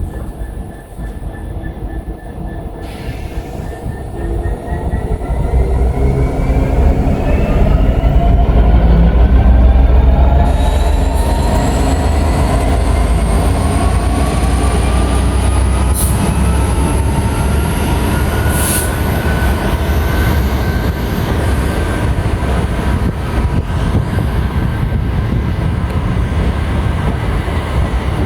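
Train at close range pulling away and gathering speed: a heavy low rumble builds over the first few seconds, while a whine of several tones climbs slowly and steadily in pitch as it accelerates.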